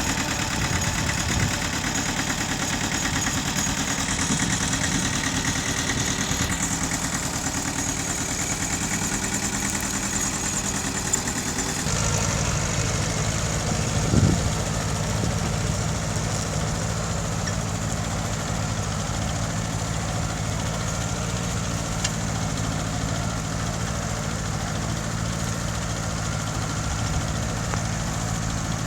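Mitsubishi tractor engine running steadily. About twelve seconds in, its note shifts and the low hum grows stronger, with a brief swell a couple of seconds later.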